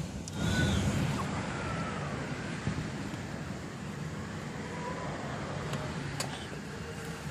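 Typhoon wind easing to a steady rush between strong gusts, with faint whistling tones and a couple of faint clicks.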